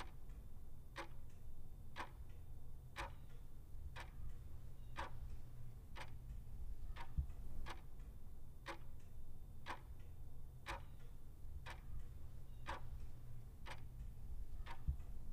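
Clock-tick sound effect for a quiz countdown timer, one tick about every second, over a low steady hum.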